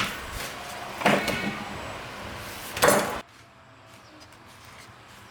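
Three sharp knocks with a little ringing after each, about a second or more apart, then the sound drops abruptly to a quiet background.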